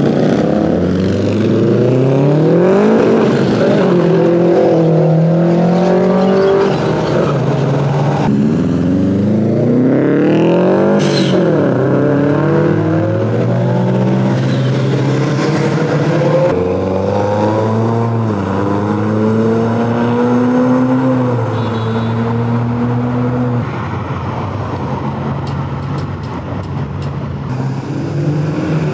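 Modified turbocharged four-cylinder Japanese cars (Nissan Silvia S15, Subaru Impreza WRX, Mitsubishi Evo 6) revving and accelerating away one after another. The engine pitch climbs and drops repeatedly through revs and gear changes, with abrupt switches between cars.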